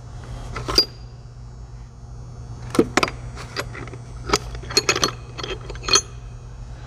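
Steel impact sockets and extensions clinking together as they are handled and fitted, a string of sharp metallic clicks with a brief ring, several in quick succession about five seconds in. A low steady hum runs underneath.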